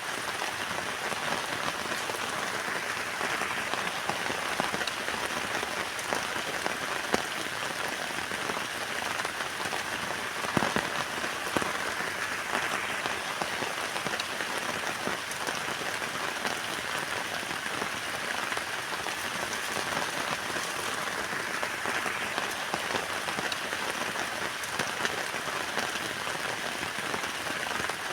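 Heavy rain falling steadily on a tent, a dense patter with a few louder single drop hits.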